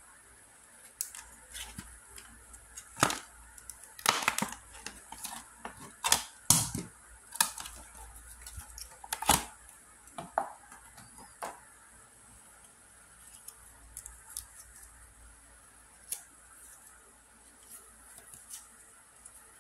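Stiff clear plastic blister packaging being handled and pulled open, giving irregular sharp cracks and crinkles that are densest in the first half. The clicks thin out into occasional paper handling sounds later on.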